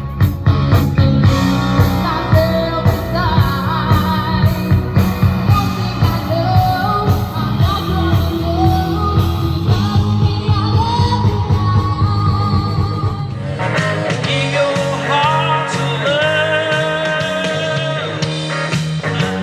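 Rock band music with singing over a steady drum beat; about 13 seconds in it switches to a lighter passage with wavering melody lines and little bass.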